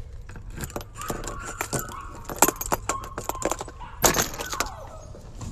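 Black metal doorknob and latch rattling and clicking over and over as a hand turns it and opens the door. Faint high whining from hungry puppies behind it.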